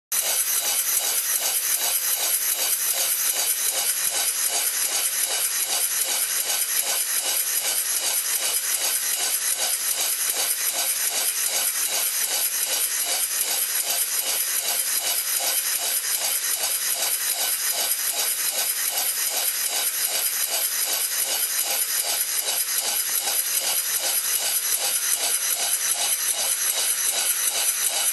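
Quarter-scale model Sturgess and Towlson V-twin steam engine running at an even speed, with a steady, rapid rhythmic beat.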